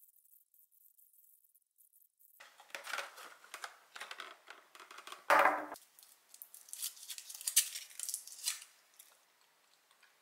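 Small foil candy wrapper crinkling and crackling as it is peeled off by hand, starting a couple of seconds in, with one louder crackle about halfway through.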